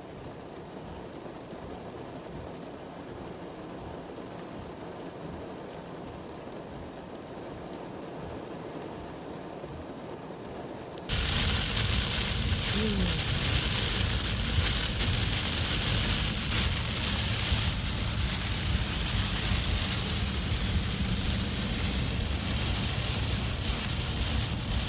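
Steady rain with the low rush of water and traffic on a flooded road. Partway through, a sudden jump to much louder, dense heavy rain pelting a car, which then holds steady.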